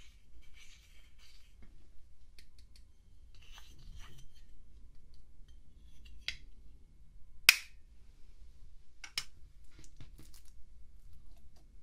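A plastic stick scrapes and crumbles pressed eyeshadow powder in a plastic compact, with soft gritty scratching. This is followed by a few sharp plastic clicks as the compact is closed and handled. One click a little past halfway is much louder than the rest.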